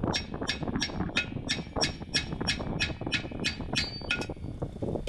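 A hammer repeatedly striking a seized rear brake drum with sharp, ringing metallic blows, about three a second, stopping about four seconds in.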